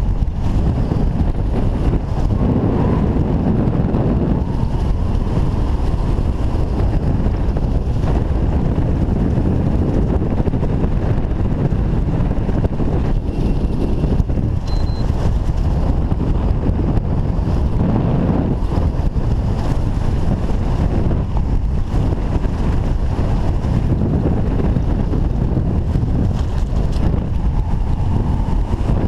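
Wind buffeting the camera microphone during a parachute canopy descent: a loud, steady low rush that swells and eases in gusts.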